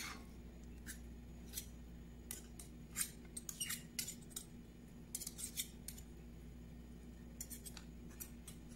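Two metal spoons scraping and clicking against each other and against a cast iron skillet while creamed spinach is shaped into quenelles: a scattering of short, light scrapes and clicks.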